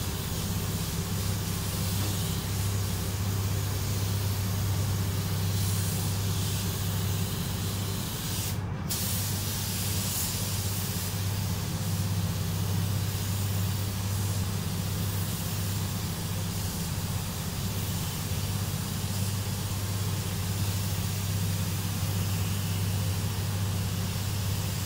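Air spray gun hissing steadily as metallic paint is sprayed onto car body panels, cutting out for a moment about nine seconds in, over a steady low hum.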